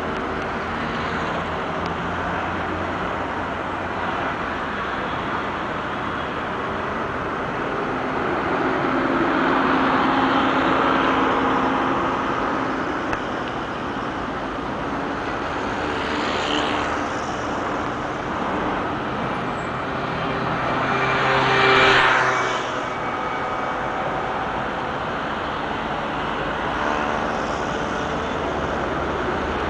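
Steady city road traffic, cars and buses running past. A vehicle passes close about ten seconds in and another, louder one at about twenty-two seconds.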